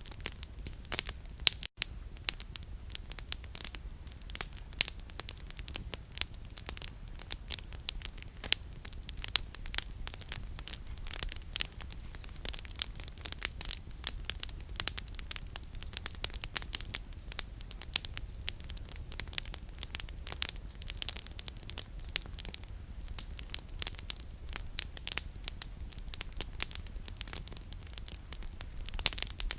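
Campfire of burning firewood crackling and popping, with many irregular sharp snaps over a steady low rumble.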